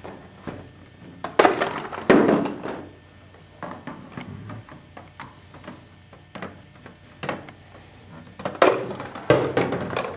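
Foam-core ball-tossing machine with rubber-band-powered plastic spoon launchers, throwing and catching a small ball. There are two pairs of sharp knocks with a brief clatter, the two knocks in each pair about 0.7 s apart: one pair about a second in and another about seven seconds later. Fainter clicks fall between the pairs.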